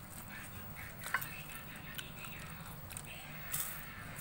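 Faint background noise with a steady low hum, a few light clicks and taps, and a short rustle about three and a half seconds in.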